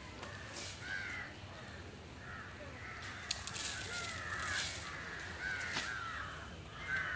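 Crows cawing again and again in short calls, with a couple of sharp cracks about three and a half and four and a half seconds in.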